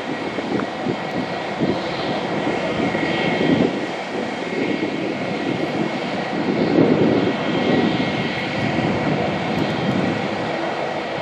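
Airbus A320's IAE V2500 jet engines running as the airliner taxis away: a steady jet noise with a thin high whine, over an uneven low rumble.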